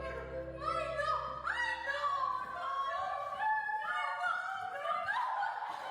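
Quiet background music with a high, gliding vocal-like melody.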